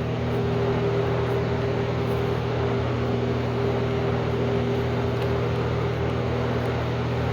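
Steady mechanical hum with a few steady low tones over an even noise, unchanging throughout.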